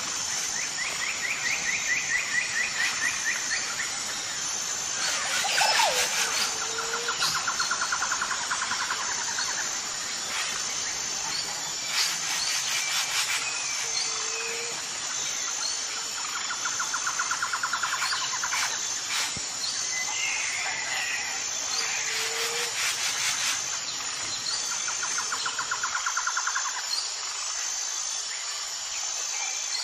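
Forest ambience: a bird gives a fast trill of two to three seconds, repeated every several seconds, over a steady high insect buzz. A short low note recurs about every eight seconds.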